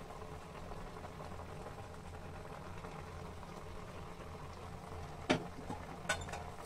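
Grated carrots boiling in water in a steel pan: a steady bubbling. Two sharp clicks come about five and six seconds in.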